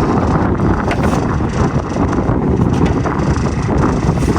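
Wind buffeting the microphone, a steady rumbling noise, with scattered clicks and knocks.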